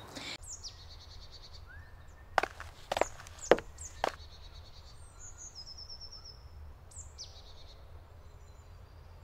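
Songbirds chirping, with a few high descending calls and a short trill in the middle, over a low steady rumble. Four sharp clicks come between about two and four seconds in.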